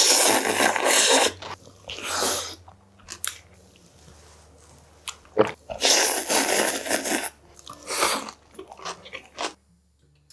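A man slurping Korean cold noodles (hoe-naengmyeon) with chopsticks and chewing them. There are long, loud slurps of about a second each at the start and again around the middle, with shorter chewing and mouth sounds between.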